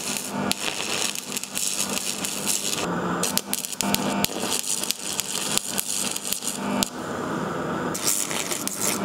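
Stick arc welding on DC crackling and hissing as tack welds are laid on a preheated cast iron exhaust manifold. The arc runs in three stretches, breaking off briefly about three seconds in and again about seven seconds in.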